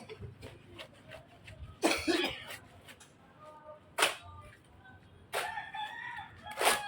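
Three sharp knocks about two to two and a half seconds apart, with a faint pitched call in the gap before the last one.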